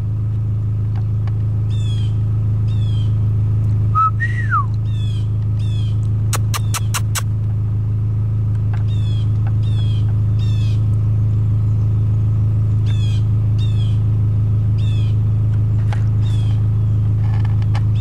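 A steady low hum like an idling engine runs throughout, with repeated short high chirps of small birds over it. A brief rising-and-falling call comes about four seconds in, and a quick run of four clicks follows a couple of seconds later.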